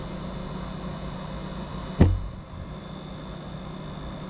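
Compressor of a Norcold 12-volt DC RV refrigerator (a QDZY43G unit) running with a steady low hum and a faint high tone; this quiet hum is all the noise it makes. A single sharp thump about two seconds in.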